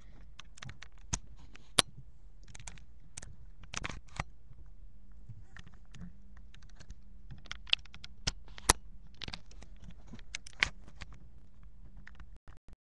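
Irregular clicks and taps on a computer keyboard, a few of them sharper and louder, over a steady low hum.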